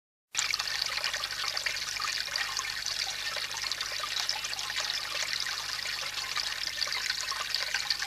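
Water trickling steadily with a fine crackle, cutting in abruptly just after the start.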